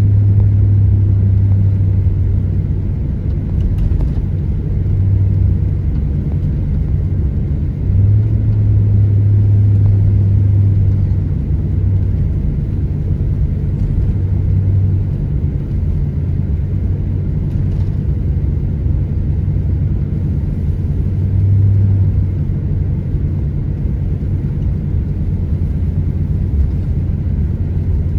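Steady low rumble of a car driving, heard from inside the cabin: road and engine noise with a deep drone that swells and fades several times.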